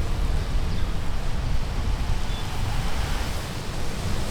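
Steady rumbling street-traffic noise, with wind buffeting the microphone.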